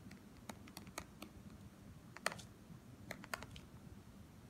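Stylus tip tapping and clicking on a tablet's glass screen during handwriting: a string of faint, irregular clicks, one sharper than the rest a little past two seconds in.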